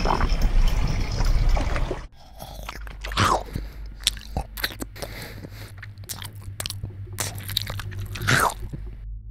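Wet mouth sound effects: chewing, smacking and slurping clicks, with two longer wet slurps. A loud low rumble fills the first two seconds and cuts off suddenly.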